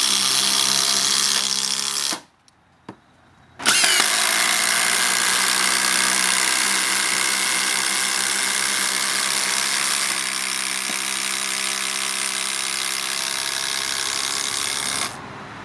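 Milwaukee M18 Fuel impact driver hammering as it drives long batten screws into timber. One drive ends about two seconds in; after a short pause a second, longer drive runs for about eleven seconds before stopping.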